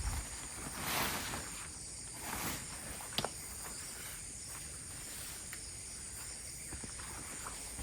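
Forest ambience: a steady high-pitched insect drone, with footsteps and rustling a couple of times and a single sharp click about three seconds in.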